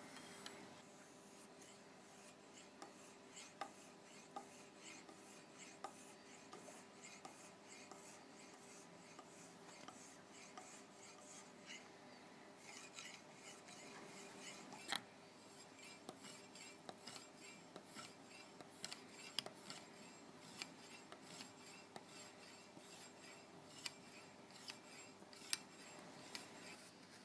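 Lansky guided-rod sharpening hone drawn in repeated faint scraping strokes along a knife edge, with an occasional sharper click.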